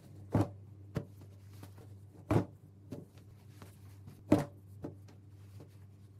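Terry-cloth towels pulled off a wire drying rack and folded by hand: three louder swishes of fabric about two seconds apart, with a few light clicks between them, over a faint steady low hum.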